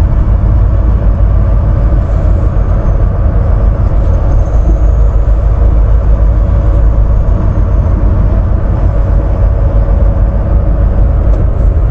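Volvo semi-truck heard from inside the cab while driving: a steady low rumble of diesel engine and road noise.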